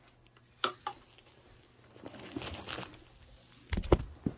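Handling noise: a few scattered knocks, one about half a second in and a couple near the end, with rustling and light scuffing in between.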